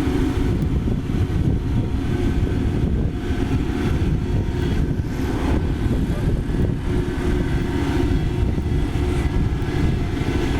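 Kubota DC-35 combine harvester's diesel engine running steadily at a constant speed.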